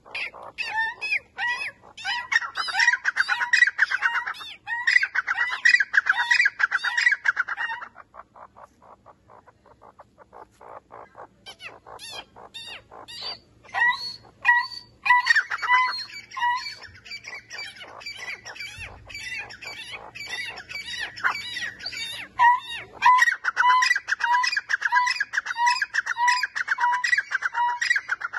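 A grey francolin (teetar) calling at close range: a fast run of harsh, repeated notes that dies down about eight seconds in, then starts up again about four seconds later as an even series of notes, about two a second.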